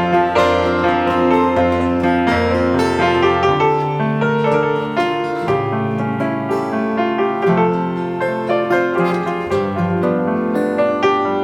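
Instrumental piano music: chords held under a moving melody, with no singing.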